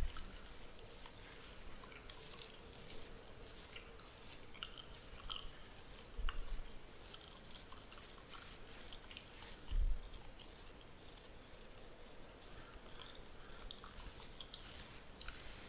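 Fingernails scratching through a beard, close to the microphone: a steady run of fine crackling, scratchy strokes, with a couple of soft low thumps.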